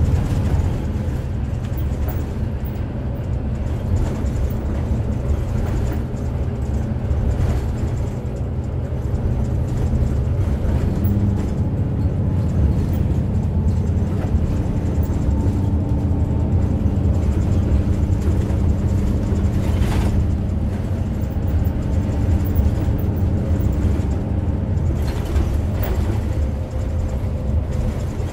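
Setra S 415 NF intercity bus's diesel engine and drivetrain running steadily with tyre and road noise as it cruises along a country road, heard from inside the passenger cabin. The engine's tone shifts about eleven seconds in.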